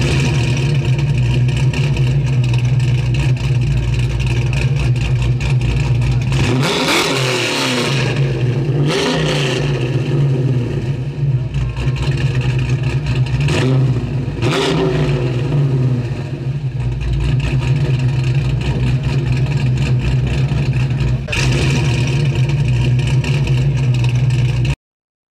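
1969 Dodge Charger Daytona's V8 running at a steady idle, revved up and back down about three times in the middle, then cut off abruptly near the end.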